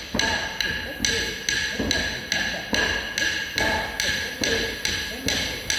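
Sharp, evenly spaced taps, a little over two a second, each ringing briefly: a steady beat keeping the tala for Bharatanatyam jati practice.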